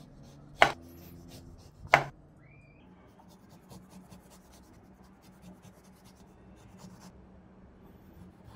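Kitchen knife cutting an orange on a wooden cutting board: two sharp knocks of the blade hitting the board about half a second and two seconds in as the ends are sliced off, then faint small cutting clicks as the peel is trimmed away.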